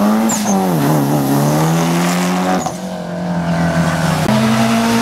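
A Mitsubishi Lancer Evolution's engine revving hard as the car accelerates away. The pitch climbs, drops back and climbs again through gear changes, with a sharp break a little after halfway.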